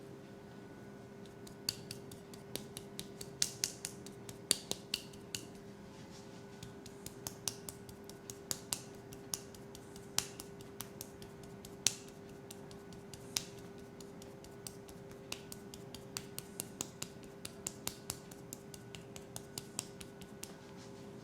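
Irregular runs of sharp, crisp clicks, several a second at their quickest, made close to the microphone as an ASMR trigger, over a steady low hum.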